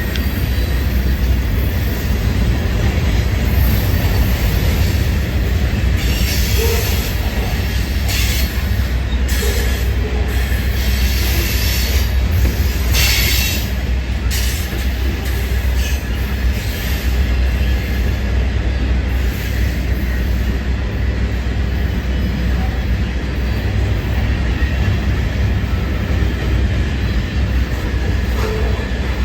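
CSX freight train rolling past close by: a steady, heavy rumble of the cars on the rails, with several short high-pitched bursts between about six and fourteen seconds in. No horn sounds.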